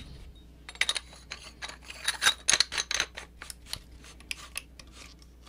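Metal Luke Skywalker Legacy Lightsaber hilt being handled: a quick run of small clicks and scrapes, as of hilt parts and threads being worked together after the battery check.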